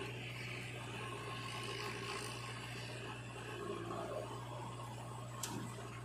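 Diesel engines of a JCB 3DX backhoe loader and a tractor running steadily while the backhoe loads soil into the tractor trolley, with a brief sharp click near the end.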